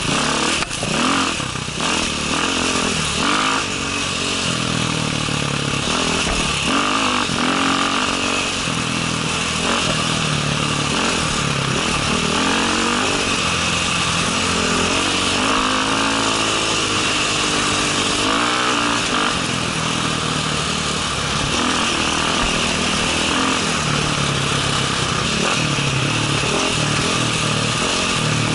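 KTM enduro motorcycle engine being ridden off-road, its pitch rising and falling as the throttle is opened and closed, over steady wind and riding noise on the helmet microphone. A few knocks sound in the first couple of seconds.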